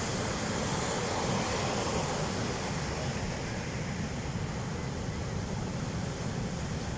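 Ocean surf washing onto a beach: a steady rush of waves that swells over the first couple of seconds and then eases off.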